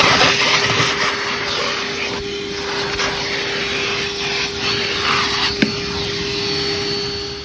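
Ridgid 18V cordless wet/dry shop vacuum running, a steady motor whine under the rush of air, which swells and eases as the nozzle works over the car interior picking up small debris. One sharp click about five and a half seconds in.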